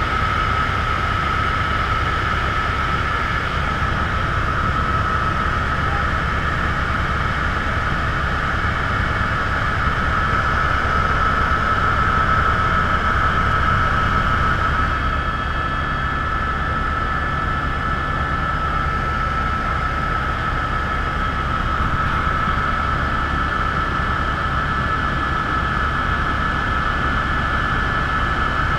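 Steady helicopter cabin noise from inside the aircraft: a constant low drone with a steady high whine over it, unchanging in level.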